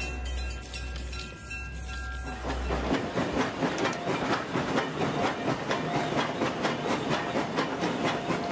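Wooden toy train cars rattling and clicking along wooden track in a fast, even run, starting about three seconds in after a low steady rumble.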